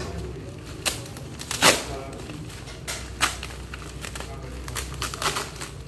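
Packaging being handled: scattered rustles and sharp clicks, the loudest about 1.7 s in and another about 3.3 s in, over a low steady hum.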